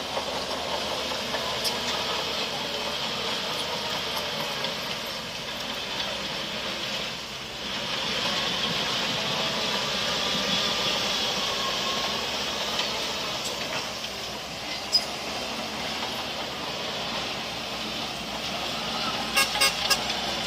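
Heavy construction machinery running steadily, most likely the bulldozer's diesel engine with its tracks and hydraulics working. A sharp knock sounds about two-thirds of the way in, and a few quick clicks come near the end.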